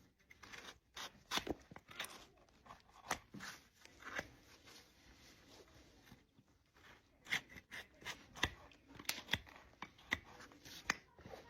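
Farrier's tools cutting into an overgrown draft-horse hoof: sharp crunching snips and cracks of hoof horn being cut away, coming irregularly, a dozen or more.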